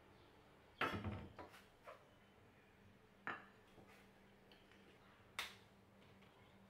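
Light knocks of a ceramic plate being handled on a cloth-covered countertop: a quick cluster about a second in, then a few single knocks a second or two apart, over a faint steady hum of room tone.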